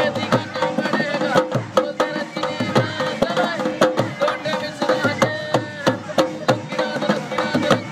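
Indian folk music with a dholak drum beating a quick, even rhythm under a pitched melody and a steady drone-like tone.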